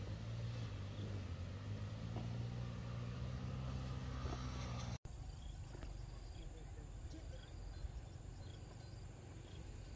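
An engine running steadily at a low, even pitch, then after a sudden cut about halfway through, insects chirring with a steady high-pitched tone.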